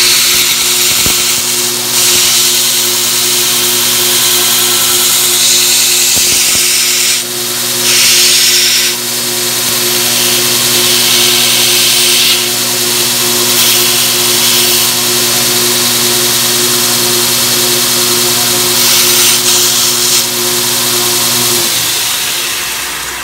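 Belt sander running with a steady motor hum while the edges of small eighth-inch 304 stainless steel parts are ground against its 24-grit belt, taking off plasma dross. The grinding hiss swells in repeated passes. About 22 seconds in, the sander is switched off and winds down.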